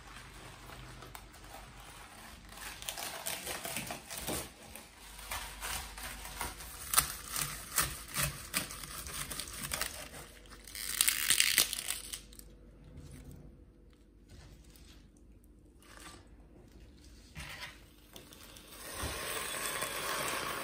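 Red cabbage being pulled apart and cut with a knife on a plastic chopping board: leaves crinkling and tearing, with a run of sharp knife cuts. Near the end, water from a kettle pours steadily into a steel saucepan of the cut leaves.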